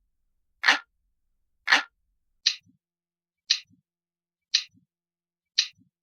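Looping clock-ticking sound, one tick about every second. About two and a half seconds in the ticks change to sharper, higher clicks, each followed closely by a faint lower tick.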